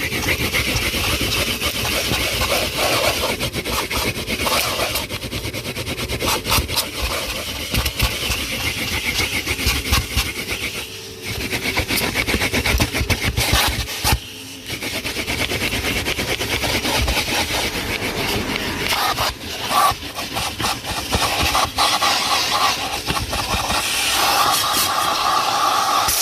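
Numatic NTD570 commercial vacuum cleaner running steadily, its suction noise rising and dipping as the nozzle is worked over the car's interior, with brief drops about 11 and 14 seconds in.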